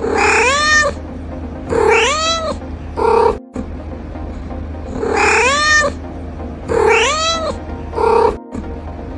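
Domestic cat meowing: three calls in quick succession, each rising then falling in pitch, the third shorter. The same three-meow sequence then repeats identically.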